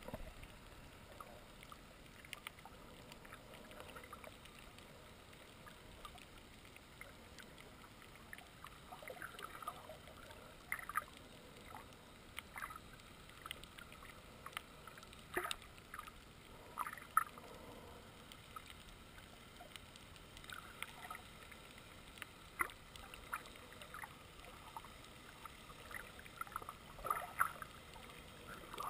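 Muffled underwater sound heard through a waterproof camera housing: a faint steady hiss with scattered soft clicks and gurgles, a few louder ones about 11, 15, 17 and 27 seconds in.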